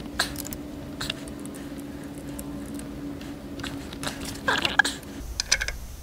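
Scattered, irregular light metallic clicks and taps of a wrench working a terminal nut on a winch control box, over a steady hum that stops about five seconds in.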